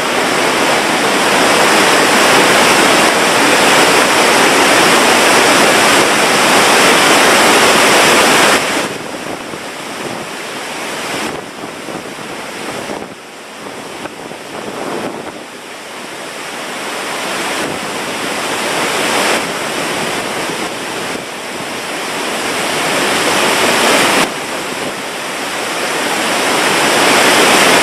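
Waterfall's steady rushing of falling water, a dense hiss with no tones in it. It drops suddenly about a third of the way in, wavers, then swells back to full loudness by the end.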